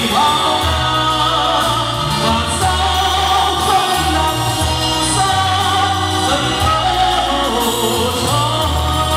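A male singer singing a Vietnamese ballad live into a handheld microphone, holding long notes over instrumental accompaniment with a steady bass line.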